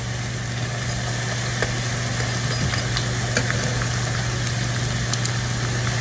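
Tortilla chips frying in hot oil in a skillet, a steady sizzle, with a few light clicks of metal tongs against the pan as the pieces are turned. A steady low hum runs underneath.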